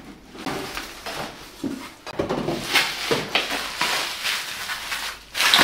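A cardboard box being unpacked: cardboard flaps and packing material rustling and scraping as a bubble-wrapped package is handled and pulled out, with a louder crackle of plastic wrap near the end.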